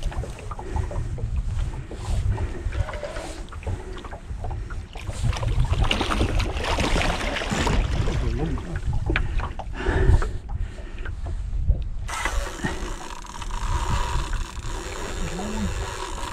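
A hooked pike thrashing and splashing at the water's surface beside the boat as it is brought to the landing net, loudest around the middle, over a steady low rumble.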